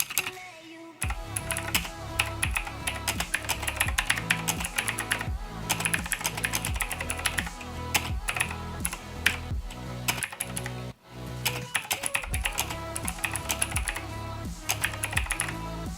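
Rapid typing on a mechanical keyboard with clicky blue switches, a dense patter of key clicks, over electronic music with a steady beat.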